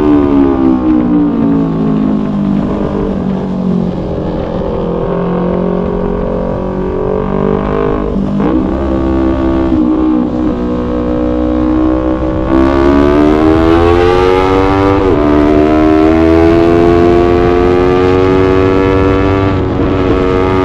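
Yamaha YZF-R3 parallel-twin engine under way. The revs fall off over the first few seconds and stay low for a while, with a brief break about eight seconds in. They climb again from about twelve seconds, dip once for a gear change, then hold steady higher up, over a constant low rumble of wind and road noise.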